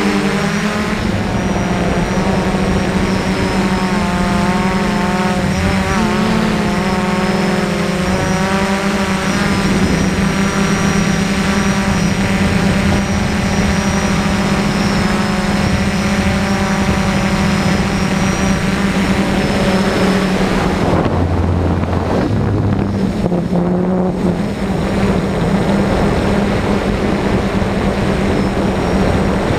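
DJI F450 quadcopter's four electric motors and propellers whining in flight, the pitch wavering up and down as the throttle changes. Its high hiss thins out briefly about two-thirds of the way through.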